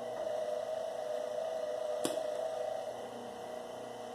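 Copper wire stripper running with a steady hum, a little stronger for the first couple of seconds, and one sharp click about two seconds in.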